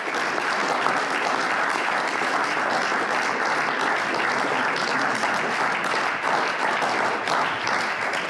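Audience applauding, a steady, sustained clapping.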